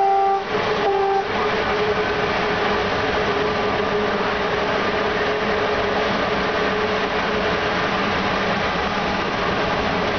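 A train horn sounding a long note that stops just after the start, then one short blast about a second in. After that, the steady noise of a locomotive running along the rails at speed, heard from inside the cab.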